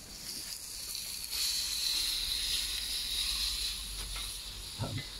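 Burger patties sizzling on a hot Weber Q 1000 gas grill: a steady high hiss that grows louder about a second in, then eases off.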